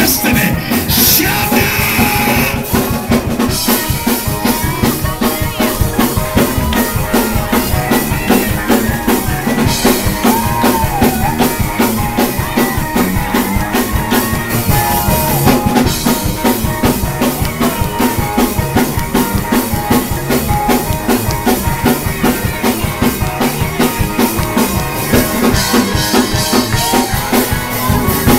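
Praise-break music: a drum kit drives a fast, steady beat with other instruments over it.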